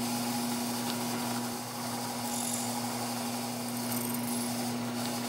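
Bridgeport milling machine spindle running with a steady hum, drilling a cotter-pin hole in the end of a hand-truck axle.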